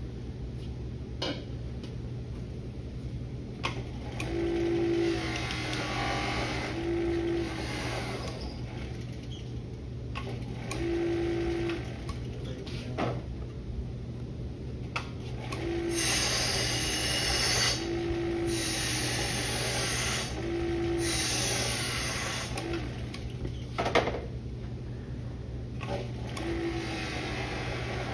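Bench buffing motor running steadily with a hum, its spinning buffing wheel rasping and hissing each time work or compound is pressed against it. The rasps come and go and are strongest from about 16 to 22 seconds in.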